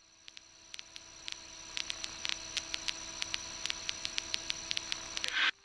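Static hiss with scattered crackling clicks and a faint steady hum on a light aircraft's headset intercom audio, slowly growing louder and cutting off suddenly about five and a half seconds in.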